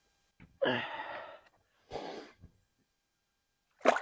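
A person's two breathy exhales, then near the end a sharp splash as a released bream drops back into the water.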